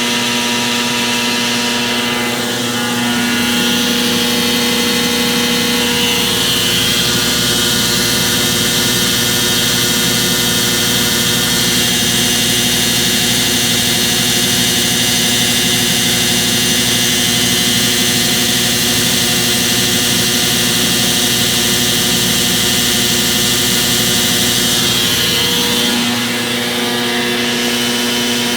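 Brastemp BWM08A 8 kg washing machine in its spin cycle, running with a steady motor whine over a hissing rush. This is the unusual spin-cycle noise the machine is being recorded for. One steady tone drops out about three seconds in and comes back near the end, with a slight dip in level at each change.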